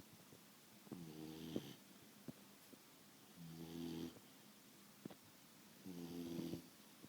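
A beagle snoring in its sleep: three snores about two and a half seconds apart, each a short pitched snore with a breathy hiss, and a few faint clicks between them.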